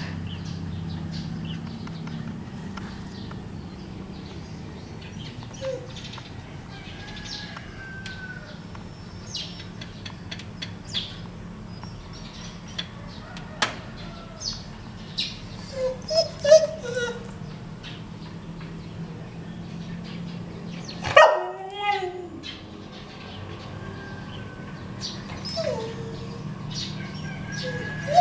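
Japanese Spitz giving a few short whines and yips, the loudest a falling whine about three-quarters of the way through, over a steady low hum.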